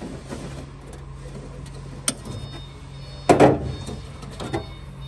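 Handling noise from a hand working wiring inside a ute's tailgate cavity: a sharp click about two seconds in and a louder knock a little after three seconds, over a steady low hum.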